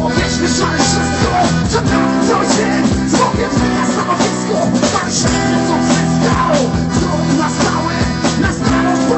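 Rock band playing a song with accordion, electric guitars and a drum kit keeping a steady beat, a voice singing over them.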